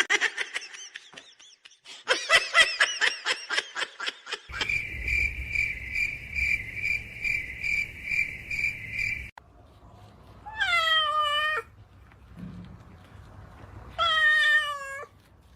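A cat meowing twice, each call about a second long, in the second half. Before that come quick runs of short high chirping sounds, then a steady high beeping tone that pulses about twice a second and cuts off suddenly.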